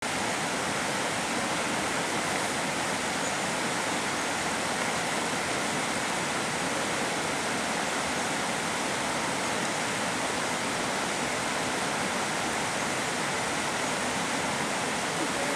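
Steady, even hiss of noise that starts abruptly out of silence and holds unchanged, with no distinct events in it.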